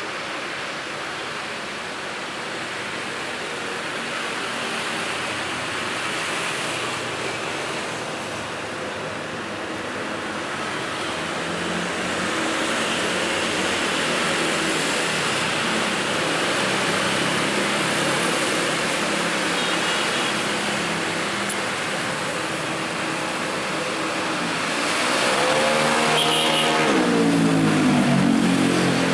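Road traffic: a steady stream of passing vehicles, with tyre noise and engine hum. About 25 seconds in, one vehicle passes close by, its engine loud and its pitch dropping as it goes by.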